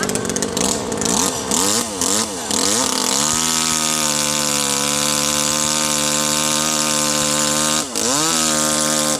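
Chainsaw engine revved up and down several times in quick blips. It then runs held at full throttle for about four and a half seconds, drops briefly and revs back up near the end.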